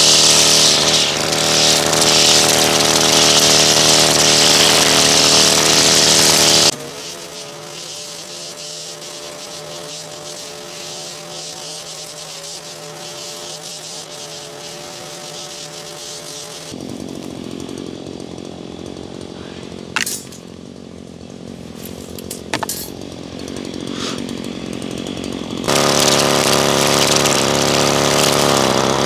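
String trimmer running steadily as it cuts grass, its whine loud close up, then much quieter for a long middle stretch with a couple of sharp ticks, and loud again near the end.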